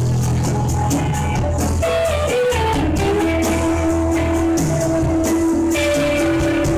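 Live jam-band rock: electric guitars playing over bass guitar and drum kit, with a guitar holding a long note through the second half.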